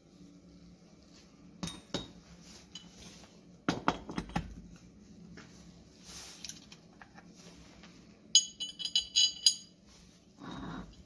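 Metal parts being handled on a workbench: a cast wheel hub and an aluminium adapter plate knocking together and against the bench, a few sharp knocks then a loud clatter, followed about eight seconds in by a quick run of bright, ringing metallic clinks.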